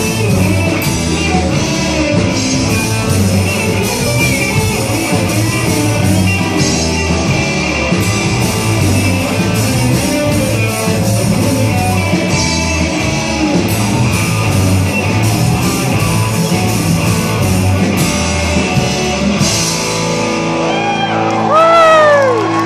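Live rock band playing: electric guitars, bass and drum kit with a singer, loud in a large hall. Near the end the drums and bass drop out, leaving held notes and sliding pitches.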